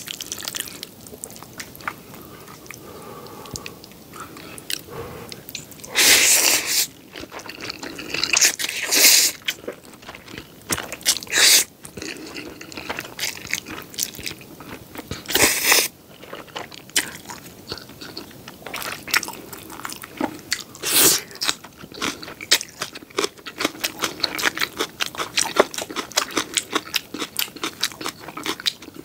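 Close-miked eating of jjapaghetti black bean noodles with green onion kimchi: steady wet chewing and crunchy bites, broken by several loud slurps of noodles a few seconds apart.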